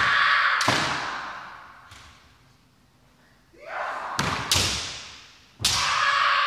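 Kendo sparring: sharp impacts of bamboo shinai strikes and stamping steps on a wooden floor, with loud shouted kiai, echoing in a large hall. One shout and a strike come at the start, two strikes come about four seconds in, and a hard strike near the end opens a long drawn-out shout.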